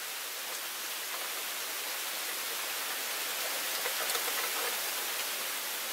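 Rain falling steadily, an even hiss with a few faint drop ticks around the middle.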